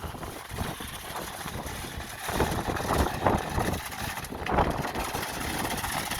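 Concrete mixer truck's diesel engine running steadily, with a few louder surges partway through.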